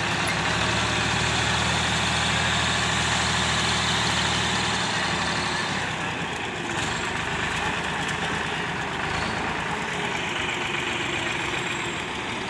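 Powertrac Euro 60 tractor's diesel engine running steadily while its hydraulics tip a trolley of sand. The low engine hum drops away about five seconds in, leaving a general rumble.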